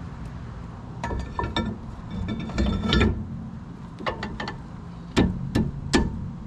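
New brake rotor being handled and slid onto the wheel hub over the studs: metal clinks and scrapes in short clusters, then three sharp metallic knocks near the end, about half a second apart.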